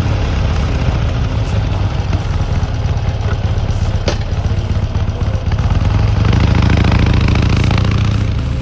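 Harley-Davidson Forty-Eight's air-cooled 1200 cc V-twin idling with a pulsing low rumble, a little louder for a couple of seconds near the end.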